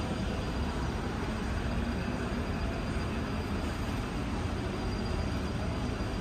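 Steady low rumbling background noise of a large store, with no distinct events.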